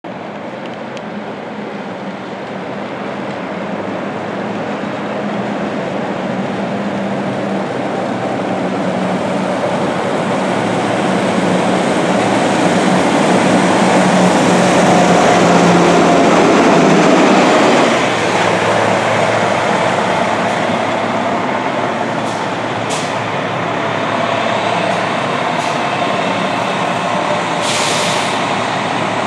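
A 2005 MCI D4500 coach's Detroit Diesel Series 60 EGR diesel engine, driving an Allison B500R automatic transmission, comes up and passes close on wet pavement. The engine and tyre hiss grow louder to a peak at about two-thirds of the way through, fall off suddenly, then settle to a steadier running sound as the coach pulls in. A short burst of air hiss comes near the end.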